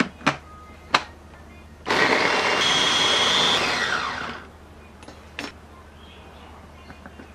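Electric mini chopper clicked together, then its motor runs for about two and a half seconds blending chopped fruit and winds down. There are three plastic clicks as the motor head is seated on the bowl, and another click near the end as it is lifted off.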